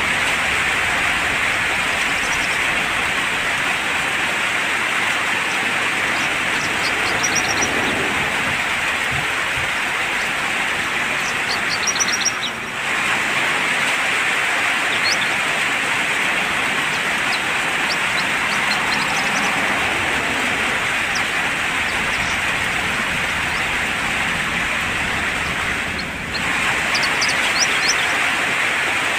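Steady rain hissing, with short high bird chirps breaking through several times. The rain dips briefly twice.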